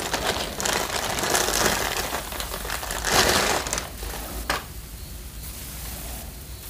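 Clear plastic wrapping crinkling and rustling as a 4-inch speaker is pulled out of it, loudest about three seconds in, then a single sharp click.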